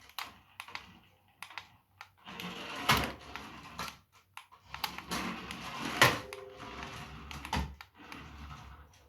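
Toy radio-control rally car driving on a hard floor: scattered clicks and knocks, with two spells of small-motor whirring and rattling, the first about two seconds in and the second from about five to eight seconds.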